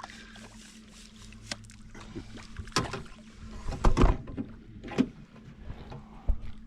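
Knocks and thumps on board a small fishing boat, a handful of sharp ones with the loudest about four seconds in, over a steady low hum.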